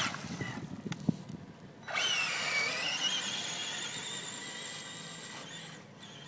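Electric motor of a Traxxas Summit RC monster truck whining as the truck accelerates away. The high whine starts suddenly about two seconds in, rises in pitch, then holds steady and fades as the truck gets farther off.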